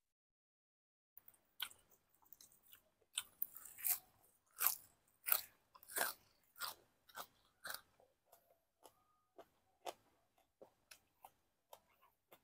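A person biting and chewing a mouthful of raw, crisp green leaves, with crunches coming about one to two a second. It starts about a second in, is loudest in the middle, and tapers off into lighter clicks near the end.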